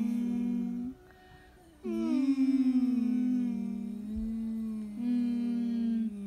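Children imitating a whale call with their voices: a long, held hum that breaks off about a second in, then returns as a sliding, wavering note before settling into a steady hum again.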